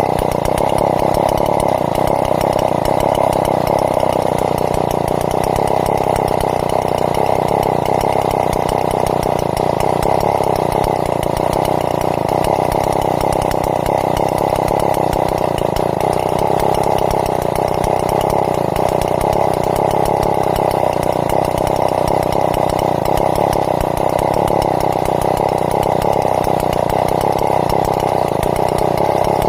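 Chainsaw running steadily at full throttle, ripping timber lengthwise into planks. The engine note wavers slightly but holds without dropping to idle.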